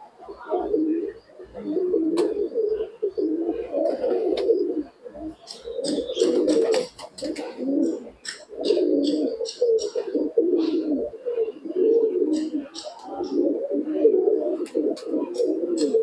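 A flock of domestic pigeons cooing continuously, the coos overlapping one another, with scattered short sharp clicks.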